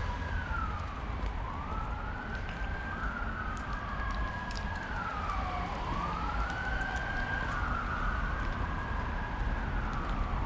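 A siren wailing, its pitch sliding slowly up, holding and falling back every few seconds, over a steady low rumble.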